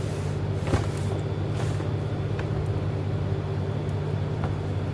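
Steady low machine hum, with a sharp click a little under a second in and a few faint light scrapes.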